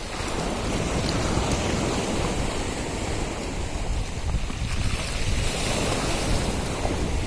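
Sea surf washing onto the shore in slow swells, with wind rumbling on the microphone.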